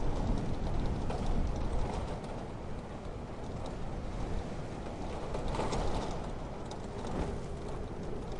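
Storm ambience: a low, rumbling wind with a steady patter of rain-like drops. It is louder in the first two seconds, then settles.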